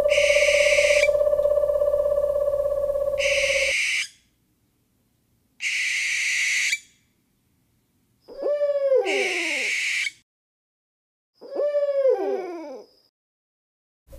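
Owl calls: harsh, hissing screeches about a second long, repeated every two to three seconds, over a steady hoot that stops about four seconds in. Later come two falling, wavering calls.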